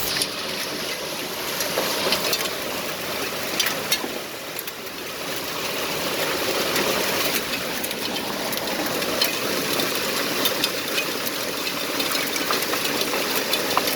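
Heavy hail falling: a dense, steady rush of impacts with many sharper individual clicks and cracks from hailstones striking hard surfaces.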